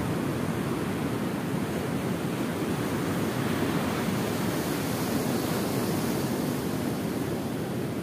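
Ocean surf washing steadily onto a sandy beach, a constant roar of breaking waves with no single crash standing out.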